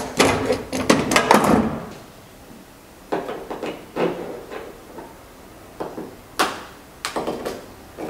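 Clanks, clicks and rattles of metal dent-pulling tools being worked on a car's steel body panel. A busy cluster of rattling comes in the first two seconds, then single knocks about half a second to a second apart.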